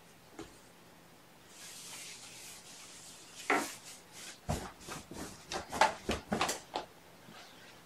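A cloth sheet swishing as it is shaken out, then a quick run of light knocks and clatters, the loudest a little under six seconds in.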